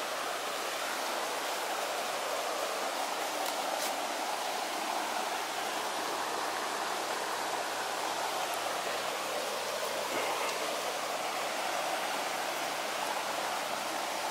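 Steady rushing of a shallow, rocky river.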